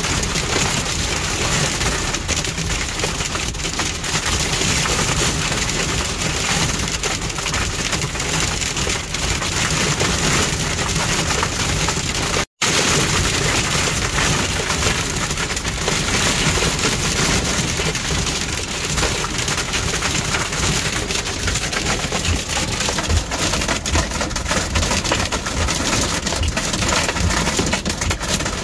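Heavy wind-driven rain and hail pelting a vehicle's windshield and body in a severe thunderstorm: a loud, steady din dotted with many sharp hits. The sound cuts out completely for an instant about halfway through.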